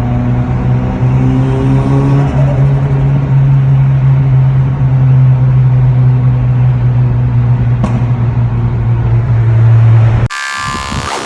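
Toyota Altezza's turbocharged 3S-GE four-cylinder running under steady revs, a loud even drone that climbs a little at first and then holds. About ten seconds in it cuts off abruptly and music starts.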